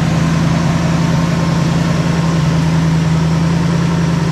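Ford 289 small-block V8 engine running steadily, with a constant low tone and no change in speed.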